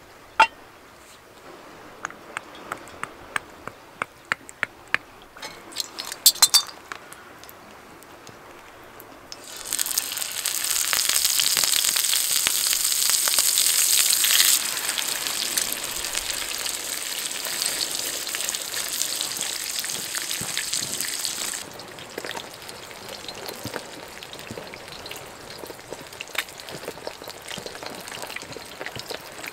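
A cast iron pan is set down on a small stove with a sharp clink, then small crackles and ticks. About ten seconds in, sea bass fillets go into hot oil and sizzle loudly. The sizzle eases after a few seconds into a steady frying hiss, then drops to a quieter crackle about twenty-two seconds in.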